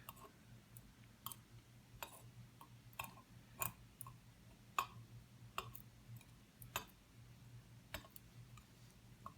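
Light, scattered metal clicks of small lock pins and springs being handled and set down on a hard surface, one or two clicks a second at irregular intervals.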